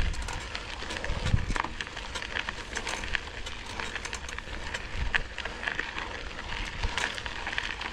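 Mountain bike being ridden over rough trail: a steady crackle of tyres on gravel and rock, with many small clicks and rattles from the bike.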